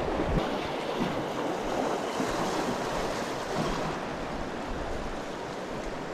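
River water rushing steadily through a concrete weir's sluice gates, a continuous even roar, with a little wind buffeting the microphone.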